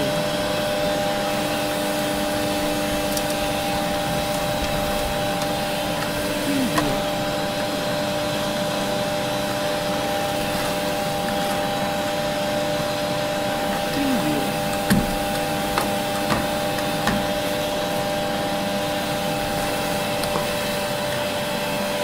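Old vacuum cleaner motor running with a steady whine over a rush of air. Its pitch dips and recovers briefly a few times, and a few light knocks come about two-thirds of the way through.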